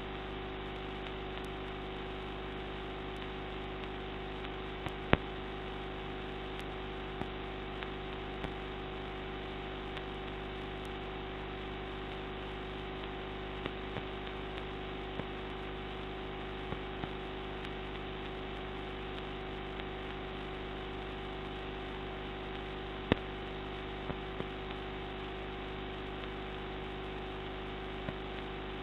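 Steady electrical hum and hiss. Faint scattered ticks run through it, with two sharper clicks, one about five seconds in and one about twenty-three seconds in.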